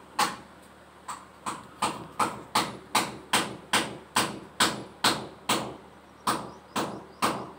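Rapid, evenly spaced hammering blows, about three a second with a brief pause near the end, as a metal part of a cooler-fan assembly is struck, most likely knocking the handle fitting into place.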